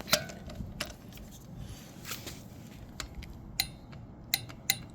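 Hand torque wrench being ratcheted to tighten a bolt to about 20 foot-pounds: scattered sharp metal clicks, then a quick run of ratchet clicks near the end, about four or five a second.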